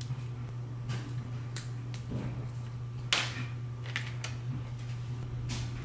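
Small Knipex flush cutters snipping and nicking at the sheathing of thin fan wires: a series of sharp clicks, the loudest about three seconds in, over a steady low hum.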